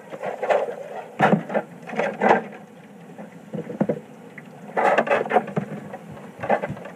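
Irregular kitchen clatter: a scattering of short knocks and bumps, like drawers, pans or utensils being handled, coming in clusters with short gaps between them.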